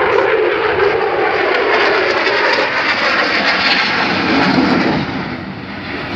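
US F-16 fighter jet flying past, its jet engine noise loud and steady, then dropping off about five seconds in.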